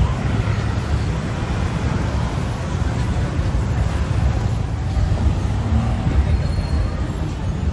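Steady rumble of busy city road traffic.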